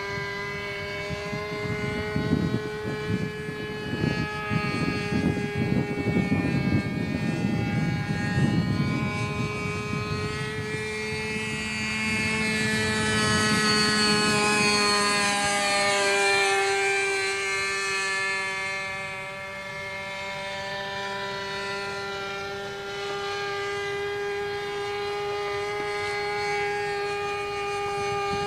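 The small glow-fuel two-stroke engine (OS 46) of a radio-controlled model plane runs at a steady high-pitched whine in flight. It grows louder as the plane passes close about halfway through, then eases off with a slight drop in pitch. Gusty wind rumbles on the microphone during the first third.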